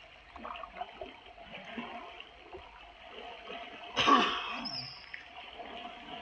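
Shallow river water sloshing and trickling as people wade through it, with a brief louder burst about four seconds in.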